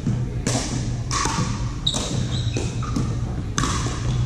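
Sharp pops of pickleball paddles striking the hollow plastic ball, with balls bouncing on the wooden floor, several times at irregular intervals and ringing briefly in a large hall, over a steady low hum.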